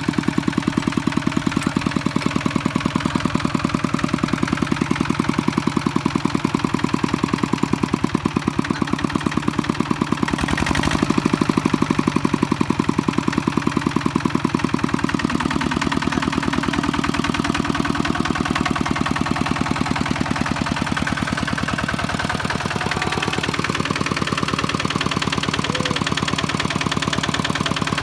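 Kubota walk-behind tractor's single-cylinder diesel engine running steadily with a fast, even chugging beat. A brief louder burst comes about 11 seconds in, and the engine speed shifts slightly a few seconds later and again near the end.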